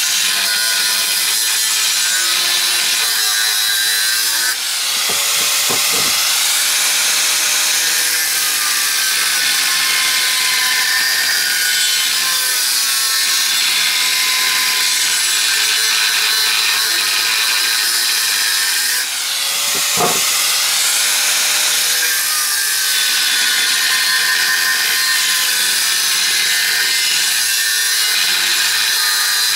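An electric power tool running continuously under load. Its motor pitch sags and recovers twice, about five seconds in and again near twenty seconds, with a short dip in level and a knock each time.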